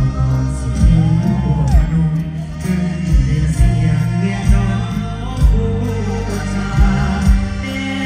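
Live Thai mor lam concert music played loud through a stage PA: a heavy bass line and regular kick-drum beats, with a singing voice gliding over it.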